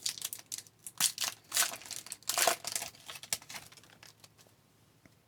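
A hockey card pack's foil wrapper being torn open and crinkled, in a run of short crackling bursts for about four seconds.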